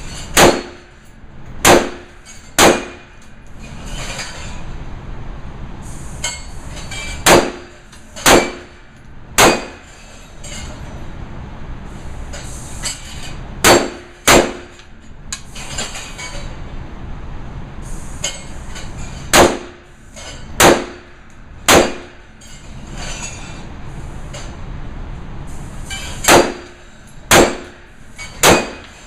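Sig Sauer 556 Classic 5.56 mm rifle firing frangible rounds: sharp shots in five strings of two or three, about a second apart, with pauses of several seconds between strings. Each shot carries a short metallic ring.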